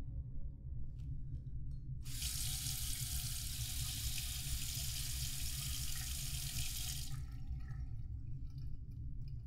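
Bathroom sink tap running into the basin, turned on about two seconds in and shut off about five seconds later, over a steady low hum.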